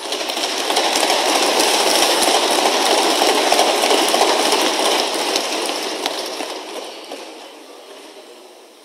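A chamber full of parliament members applauding by thumping their desks, a dense rattle of many quick knocks that swells within the first second and then dies away over the last few seconds.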